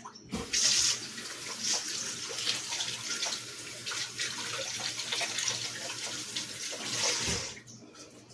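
Water running from a tap into a sink, turned on just after the start and shut off about a second before the end.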